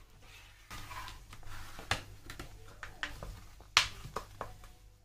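Plastic vacuum packaging of a salmon fillet crinkling and rustling as it is cut and pulled open with a serrated knife, with many sharp clicks and snaps, the loudest about four seconds in.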